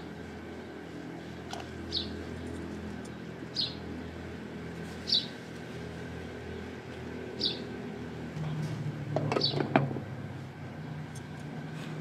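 A small bird chirping again and again, one short high chirp every second and a half or two, over a steady low hum. About nine to ten seconds in, a few metal clatters with a brief ring as the lid goes onto a metal cooking pot.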